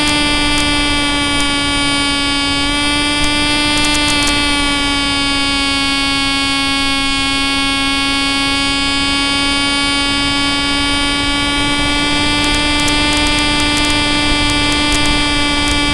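Electric motor and propeller of an RC Stryker flying wing whining steadily under power, heard from the onboard camera. The pitch sags slightly in the middle and climbs back near the end.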